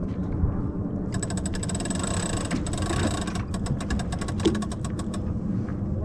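Sailboat winch ratcheting as a sheet is trimmed in: a fast run of clicks, then slower separate clicks, over a steady low rushing noise.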